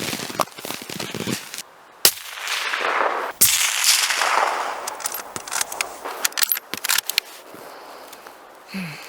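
A suppressed rifle firing: two sharp reports about a second apart, the second followed by a long rolling tail that dies away over a few seconds. Light handling clicks follow.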